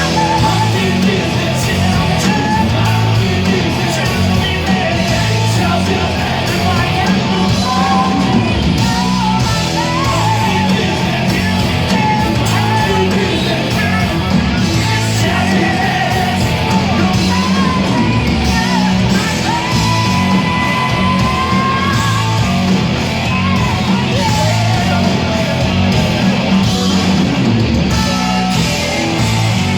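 Hard rock band playing live and loud: distorted electric guitars, bass and drums, with a singer yelling over them.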